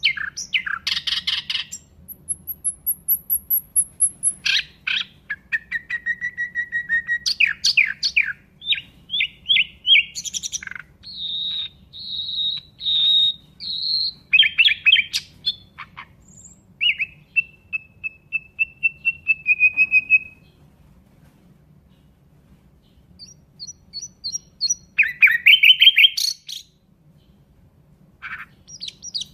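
Nightingale singing: varied phrases of rapid rattling trills, sharp clicks and long, steady whistled notes. There is a pause of a few seconds about two-thirds of the way through before another burst of song.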